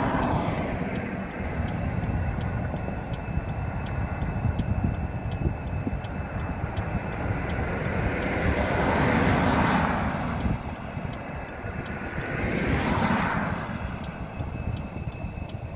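Cars passing on the road, each a swell of tyre and engine noise that rises and fades: one just at the start, one around nine seconds in and one around thirteen seconds. Under them runs the low, steady rumble of an idling car.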